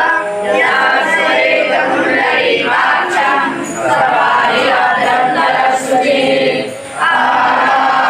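A group of voices chanting together in unison, a devotional chant sung in phrases with short breaks between them.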